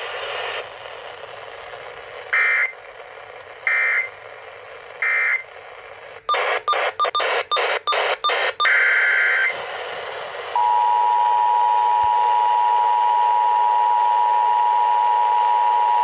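Emergency Alert System tones over FM radio with background hiss: three short warbling data bursts of the end-of-message code about a second apart. Then comes a quick run of clicks as the radio is retuned, one more brief data burst, and from about ten and a half seconds in the steady two-tone attention signal of the next station's alert.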